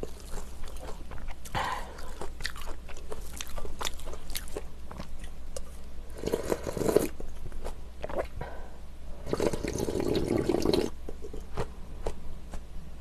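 Close-miked eating sounds: chewing with many short wet mouth clicks. Twice, about six seconds in and again near ten seconds, there are longer noisy stretches as rice cake soup broth is drunk straight from the tipped bowl.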